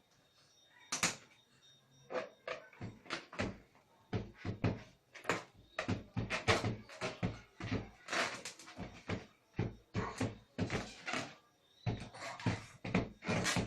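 Repeated sharp knocks and bangs, irregular at about two to three a second, as a child bangs on something like a cupboard or door.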